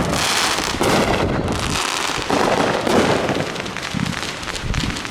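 Fireworks going off in quick succession: a dense, pretty loud crackling and popping that swells and fades in several waves.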